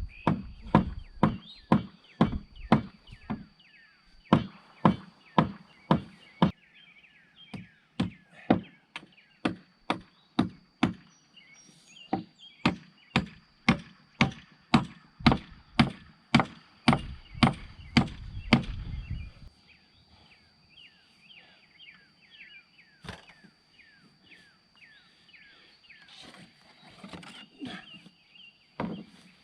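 Repeated sharp strikes, about two a second, for most of the first twenty seconds, then only a few scattered ones.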